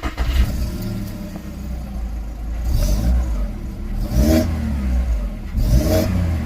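VW Golf Mk5 1.6 petrol four-cylinder engine running, blipped a few times so the revs rise and fall, notably around four and six seconds in. It runs smoothly now that the misfire is cured.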